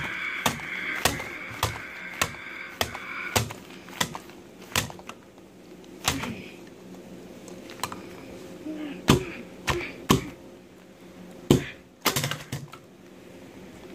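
Plastic toy figures knocking against a tabletop in sharp taps, about two a second at first, then a few scattered, louder knocks. Over the first few seconds a child's high, wavering mock crying.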